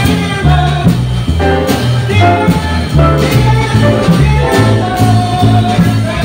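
Live jazz combo playing: an upright bass walking in even steps about twice a second under piano chords and a drum kit with cymbal strokes.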